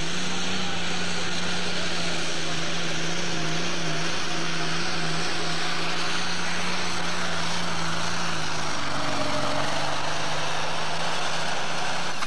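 Diesel pulling tractor's engine running flat out under full load as it drags a weight-transfer sled down the track, a loud, steady high engine note with a dense roar of exhaust over it.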